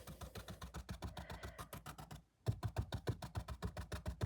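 A paintbrush stippling paint onto a stiff, textured canvas: rapid, even taps, about eight to ten a second, with a brief pause a little past halfway.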